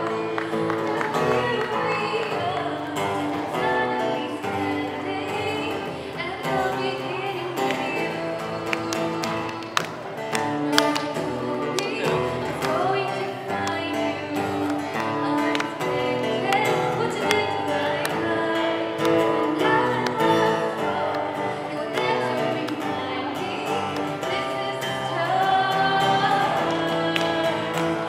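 A young woman singing a song into a microphone over backing music.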